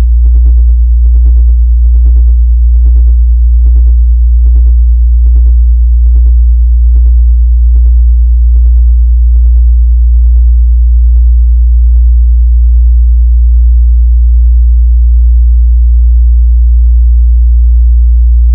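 A loud, steady, very low electronic sine tone, with a pulsing synthesized beat about every second over it that fades out about two-thirds of the way through.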